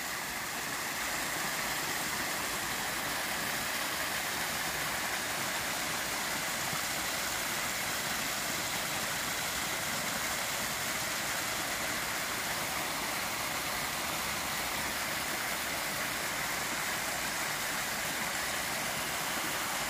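Water from a small spring splashing down over rocks in a steady, unbroken rush.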